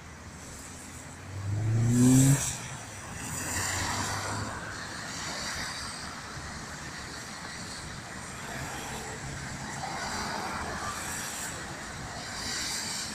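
Street traffic on a wet road: cars passing with tyre hiss, one after another. About a second in, one vehicle's engine revs up loudly, rising in pitch, and cuts off after about a second.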